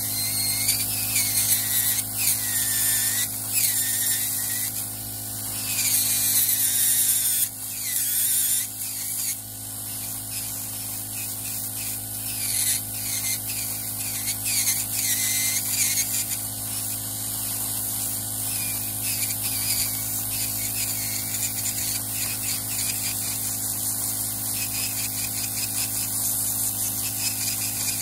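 Podiatrist's electric rotary nail drill with a burr grinding down a thick toenail to thin it. A steady motor whine runs throughout, with a high grinding whose pitch sweeps up and down as the burr bites into the nail, busiest in the first ten seconds.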